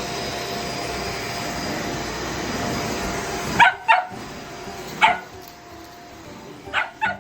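A vacuum cleaner running steadily cuts off about halfway. A blue merle Shetland sheepdog puppy then gives five short, sharp barks, the dog barking at the cleaning.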